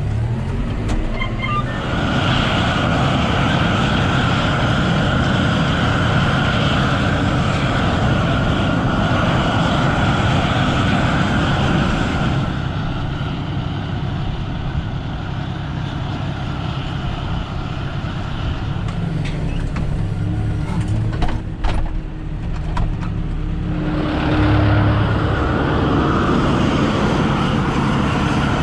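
Tractor running steadily at low field speed, pulling a gas-fired flame weeder whose burners add a constant hissing roar. About twelve seconds in, the higher hiss drops away for about ten seconds, with a few sharp clicks, then returns.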